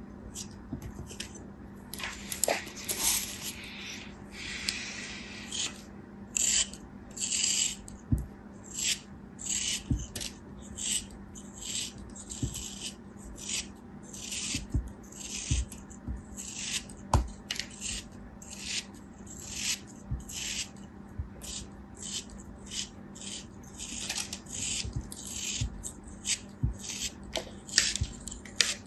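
Many short rustling and scraping strokes, roughly one or two a second, from hands working kinetic sand and its packaging. Now and then there is a soft knock, and a steady low hum runs underneath.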